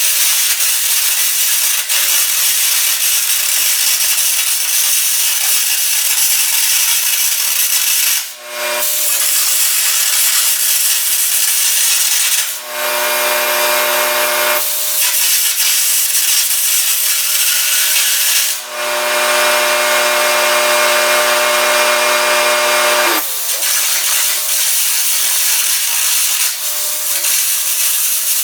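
Air carbon arc gouging: a loud, harsh crackling hiss as the arc and air jet blow out old weld and cracked steel from a machine frame, in long runs broken by four brief pauses. A steady engine hum runs underneath.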